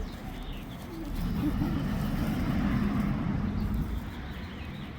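A motor vehicle passing by, growing louder about a second in and fading after about three seconds.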